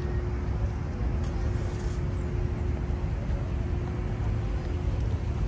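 Steady low rumble of road traffic, with a constant humming tone held at one pitch throughout.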